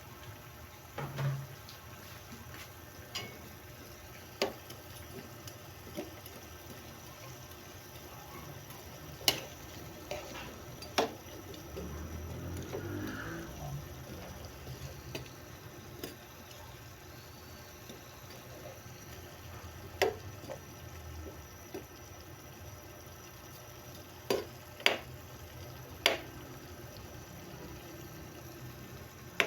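Kitchen cooking sounds: a steady watery noise with sharp clinks and knocks of utensils or cookware every few seconds.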